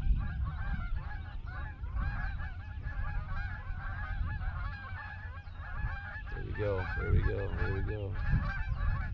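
A flock of geese honking, many calls overlapping without a break, with a few nearer, lower calls about six and a half seconds in. A steady low rumble of wind on the microphone lies underneath.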